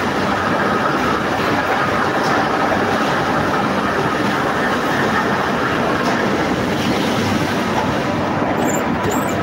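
Steel rebar mill machinery running: a loud, steady mechanical noise without let-up.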